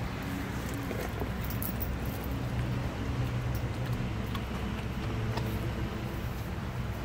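A big truck's engine running steadily in the background, a low even drone. Over it come a few small clicks from a German Shepherd licking and chewing raw food in a stainless steel bowl.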